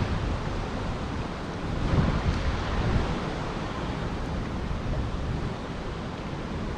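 Steady rushing of water pouring through a spillway, a dense even hiss that swells slightly about two seconds in.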